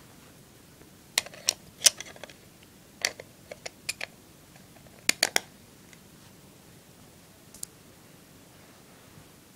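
Sharp plastic clicks and taps from handling a Canon EF-S 18-55mm kit lens and working its snap-on front lens cap, in quick clusters over the first half and one last click later.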